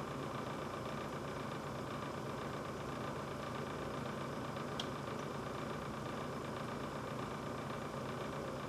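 Brand-new GE refrigerator running with a steady hum, with one short sharp click about five seconds in.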